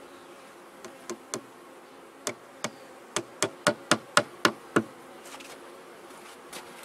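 Hammer tapping a small nail into a wooden beehive, about a dozen blows that come quicker and harder in the middle, then stop. A steady hum of honeybees runs underneath.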